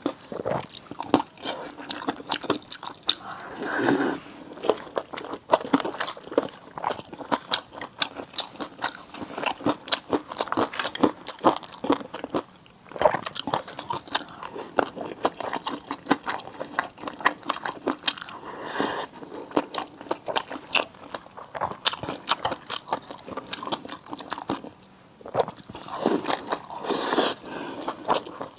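A person eating close to the microphone: biting and chewing with dense, irregular wet clicks and crackles, pausing briefly twice.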